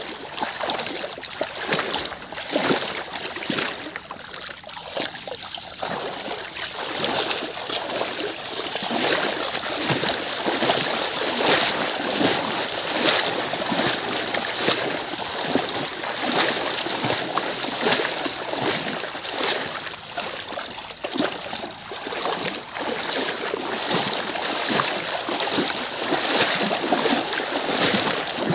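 A cow wading through shallow floodwater, its hooves splashing in a dense, irregular run, with the splashing steps of the person following close behind.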